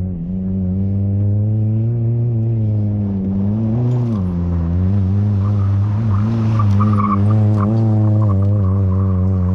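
Car engine running hard as the car slides around a dirt track. Its note wavers with the throttle, dips about four seconds in and then climbs again. Near the end, as the car comes closest, loose dirt and stones tick and scatter under the tyres.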